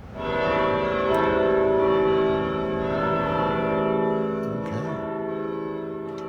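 Large church tower bell, rung from the tower's electric controls, struck at the start and then ringing on with a rich, wavering hum of many tones that slowly fades.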